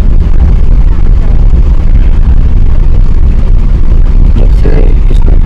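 Loud, steady low rumble inside an Airbus A380 passenger cabin: engine and airflow noise heard from a seat.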